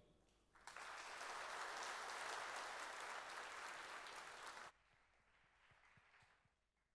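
Audience applauding, starting about half a second in and cut off abruptly after about four seconds, leaving only a faint trace.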